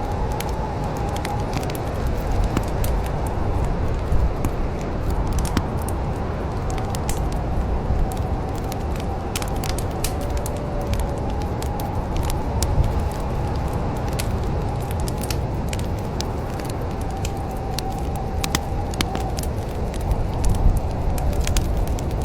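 Wood fire crackling in a fireplace: scattered sharp pops and snaps over a steady low rumble, with a faint wavering whistle in the background.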